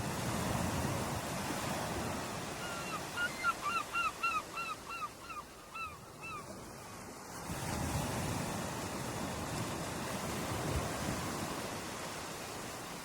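Ocean waves washing in, two surges of surf about seven seconds apart. Between them, a bird calls a quick run of about a dozen short, hooked notes.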